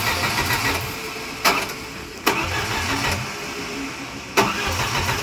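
A 1989 Jeep Wrangler's engine being cranked by its starter without catching: a rapid rhythmic cranking for about the first second that then dies away, followed by three sharp knocks. The engine will not fire, which the group puts down to no spark.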